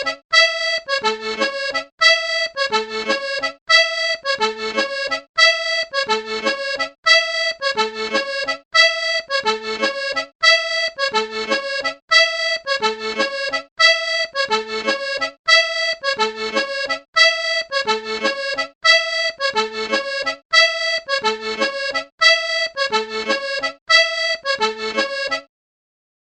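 A short reedy musical phrase of several notes repeated in a loop, about once every one and a half to two seconds, that stops just before the end.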